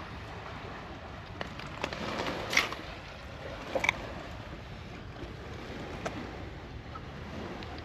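Steady rush of wind and sea surf on a pebble shore, with a few short clicks and knocks, the loudest a little after two and a half seconds and just before four seconds in.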